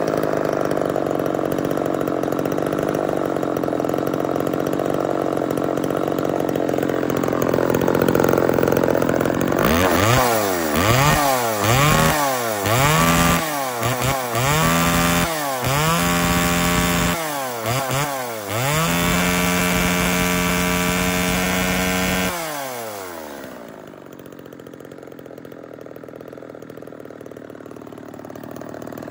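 1985 Homelite Little Red XL two-stroke chainsaw idling, then revved in quick throttle blips about once a second, held at high revs for a few seconds, then dropping in pitch and dying out.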